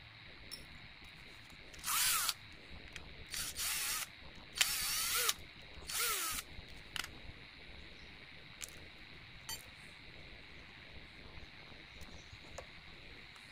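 Cordless drill run in several short bursts, each spinning up and winding down, against a small gear on an RC truck's electric motor shaft. Faint clicks of parts being handled follow.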